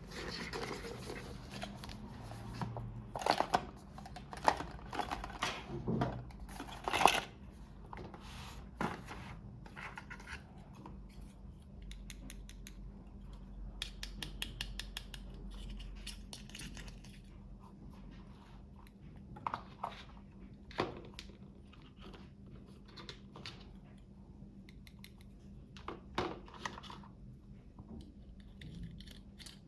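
Toy packaging being handled and opened: irregular rustling, crinkling and tearing of wrapping, with scattered sharp clicks and taps, the loudest in the first several seconds.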